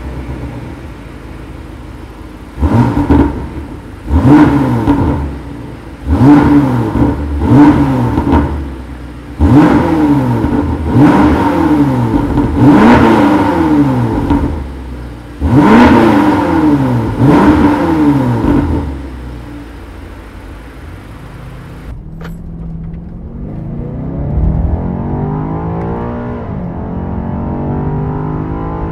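BMW X6 M Competition's 4.4-litre twin-turbo V8 through a Supersprint exhaust: a series of sharp throttle blips, each rising and dropping back, with idle between them. After a sudden cut about 22 seconds in, the same engine heard from inside the cabin accelerating in third gear, its pitch climbing steadily.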